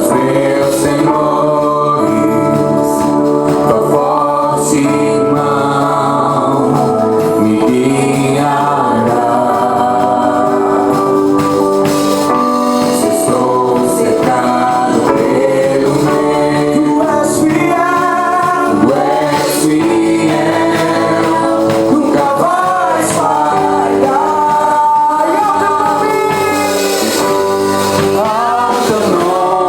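Christian worship song with singing over instrumental backing.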